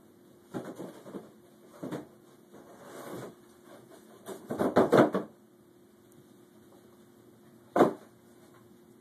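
A cardboard box knocking and scraping against a door and the floor as a toddler handles it: short clusters of knocks, a quick run of louder knocks about five seconds in, and one sharp knock near the end.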